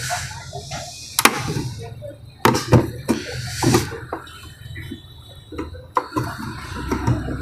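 Two screwdrivers levering a mixer grinder's drive coupler up off its motor shaft: scraping with several sharp clicks as the tool tips work against the coupler.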